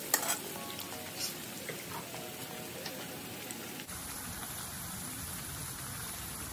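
Sliced sweet potatoes deep-frying in hot oil in a pan: a steady sizzle with scattered crackles and pops. About four seconds in the sound changes abruptly to a smoother, even hiss. Faint background music plays under it.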